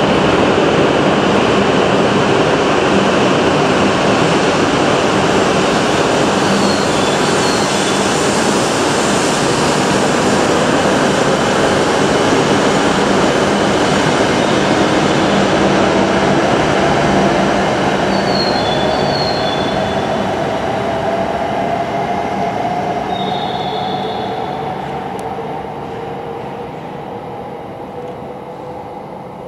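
E7-series Hokuriku Shinkansen train pulling out of the station and accelerating away: a steady rush of running noise with a rising motor whine, fading over the last ten seconds or so as the train recedes.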